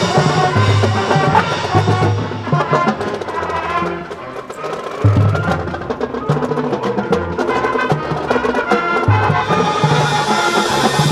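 Marching band playing live: brass chords over snare drum and front-ensemble percussion. Through the middle, quick percussion strikes crowd in, and full held brass chords return near the end.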